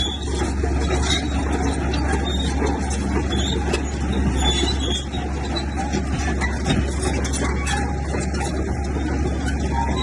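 Heavy diesel earthmoving machinery running steadily under load, a constant low engine drone with irregular metallic clanking and rattling over it.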